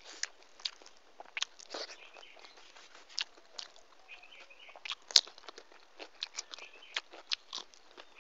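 Close-miked eating sounds: irregular crunches, clicks and mouth smacks of someone chewing food, with one sharp click about five seconds in.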